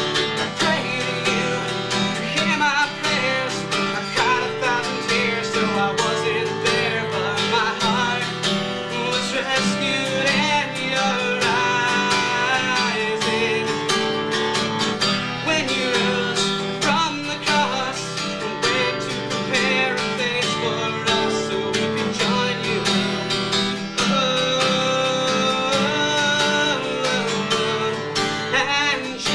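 Solo acoustic guitar playing a song, steady and continuous.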